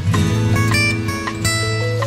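Background music with plucked string notes over a held bass line.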